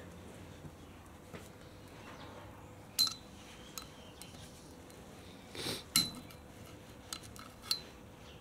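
Screwdriver working the wire retaining clip out of the dust-seal cover on a Suzuki DR650 fork leg: scattered sharp metal clinks and ticks, some with a brief ring, the loudest about six seconds in.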